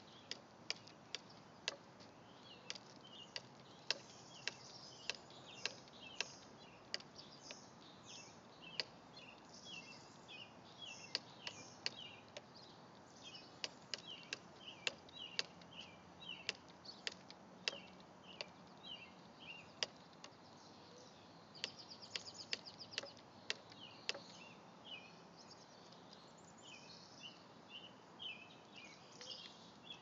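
A small bird attacking its own reflection in a car's side mirror: sharp irregular taps on the mirror, often several a second, pausing now and then. Short high chirps repeat throughout.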